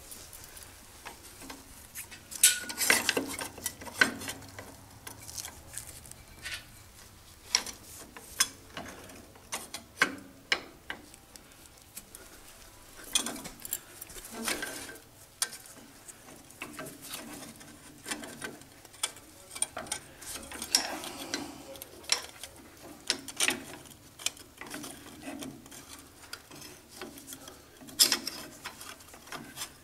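Irregular metallic clinks, knocks and scraping as a lathe's cross slide is worked by hand along its ways and partly pulled off. There is a cluster of louder knocks a few seconds in and again near the end.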